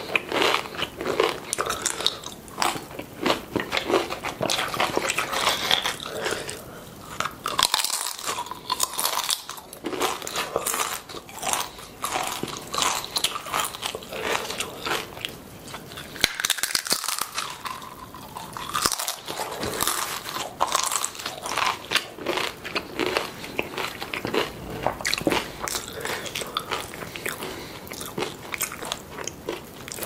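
Close-miked crunching and chewing of tortilla chips topped with salsa: many sharp bites and crunches in quick succession, with wetter chewing between them.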